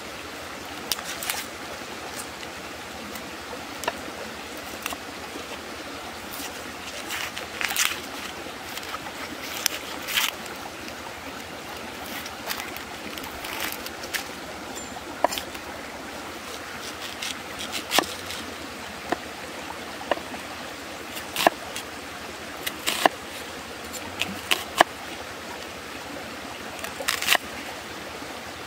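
Steady rush of flowing water, with scattered, irregular sharp clicks and taps of a knife working an onion and striking a wooden chopping board.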